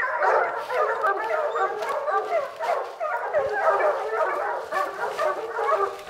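A pack of bear hounds baying treed, many dogs barking over one another without a break: the sign that the hounds have a black bear up a tree.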